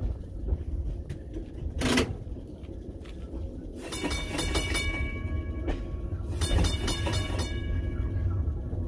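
Electroliner electric train sounding two horn blasts of about a second each, several pitches together, over the low rumble of the train rolling along the track.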